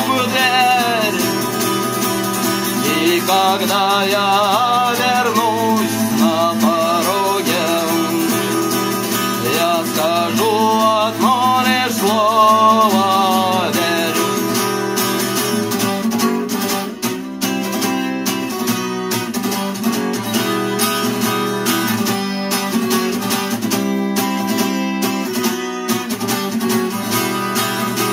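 Instrumental close of a song: acoustic guitar strumming chords, with a melody line carried on vibrato over it for about the first half, after which the guitar strums on alone.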